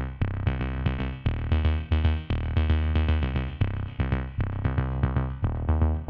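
Electronic dance music with a steady, fast beat and deep bass, played through stage loudspeakers.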